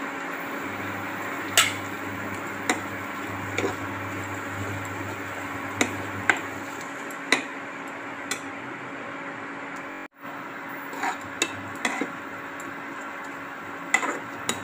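Metal spatula stirring a thick onion-and-egg curry in a nonstick kadai, scraping and clicking against the pan at irregular intervals, about a dozen times, over a steady hum.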